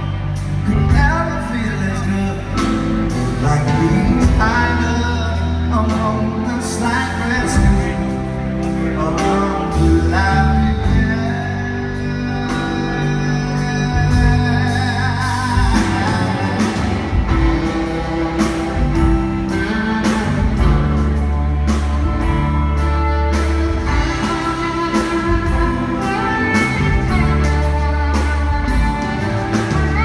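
Live band playing a song: electric guitar, bass guitar and drum kit, with a male lead vocal.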